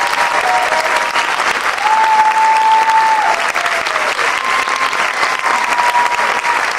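Audience applauding at the close of a dance performance, with a few long whistles from the crowd over the clapping. The loudest whistle is held for about a second and a half, starting about two seconds in, then slides down in pitch.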